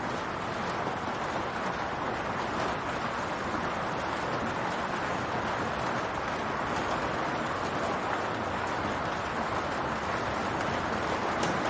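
Steady rain falling on a roof: an even hiss of many drops, with one sharper drop tick near the end.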